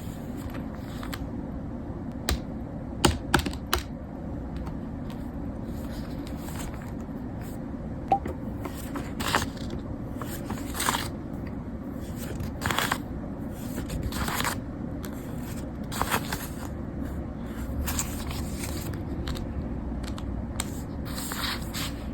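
Small objects being handled on a desk: a few sharp clicks about three seconds in, then short scraping, rustling strokes every second or two over a steady low hum.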